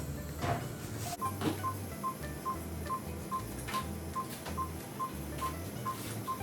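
Operating-room patient monitor (pulse oximeter) beeping in time with the heartbeat, short single-tone beeps. About a second in, the beeps jump to a higher pitch and quicken to about two and a half a second, a fast pulse typical of a child.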